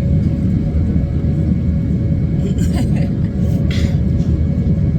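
Airliner cabin noise in flight: a steady low rumble of engines and airflow with a constant hum underneath.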